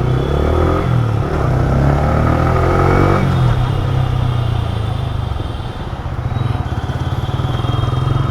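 Yamaha R15 V3 motorcycle's single-cylinder engine running on the move. Its pitch rises and falls over the first three seconds as it is revved through the gears, then it settles into a steady drone.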